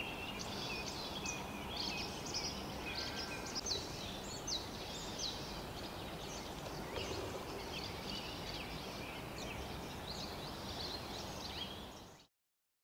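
Several songbirds singing, many short overlapping chirps and whistles, over a steady low background hiss. It all cuts off suddenly near the end.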